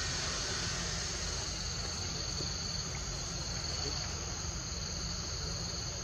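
Steady chorus of insects in the forest: a continuous high, even trill with no breaks, over a low steady rumble.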